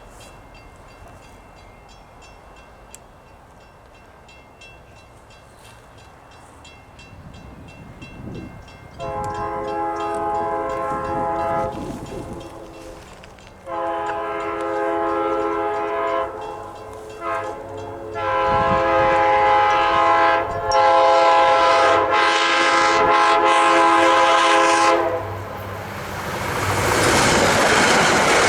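Diesel passenger locomotive's multi-chime air horn sounding the grade-crossing signal: two long blasts, a short one and a final long one. Then the train's rising rush of wheels and engine as it comes by near the end.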